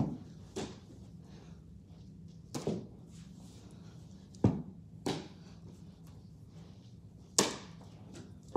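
A ball thrown against a wall and fielded in a leather baseball glove during ground-ball practice: sharp single knocks, mostly in pairs a fraction of a second apart, every two seconds or so.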